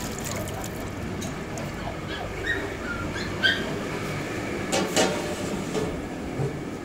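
Dogue de Bordeaux (French mastiff) puppies giving a few short high cries over a steady background rumble, with a sharp metal clatter about five seconds in.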